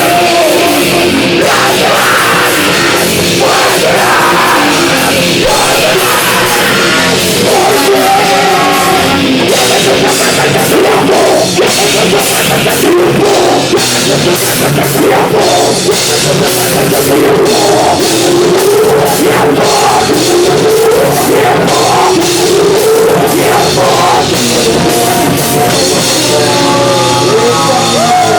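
Loud live heavy punk-rock band playing: a drum kit driving under dense, distorted instruments, without a break.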